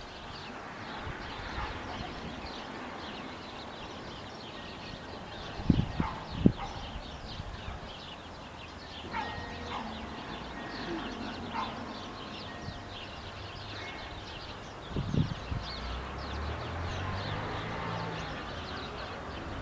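Outdoor ambience of small birds chirping continuously. A few dull low thumps come about six seconds in and again near fifteen seconds, and a low rumble rises in the last few seconds.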